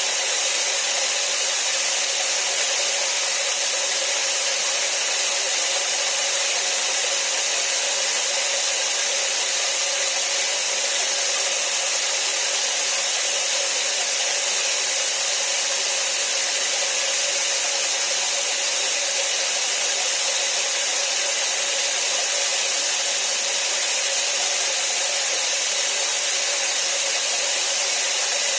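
Rain falling heavily and evenly, a dense, unbroken hiss with no separate drops standing out.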